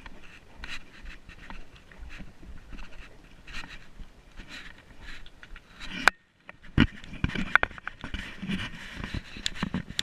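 Hard, rhythmic breathing of a hiker walking, with scattered steps and knocks on the trail. The sound drops out briefly about six seconds in, then comes back louder.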